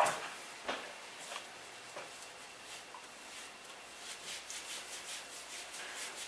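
Quiet rubbing as a chihuahua's wet fur is washed by hand in a bath, with a few brief soft strokes in the first two seconds.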